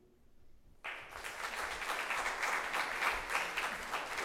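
Audience applauding: dense clapping that starts suddenly about a second in and carries on steadily.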